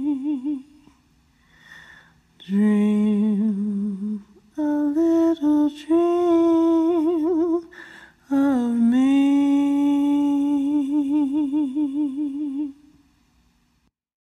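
A solo unaccompanied voice with a tube vocal filter hums the closing phrases of the song without clear words, in several short phrases. It ends on a long held note with vibrato that fades out.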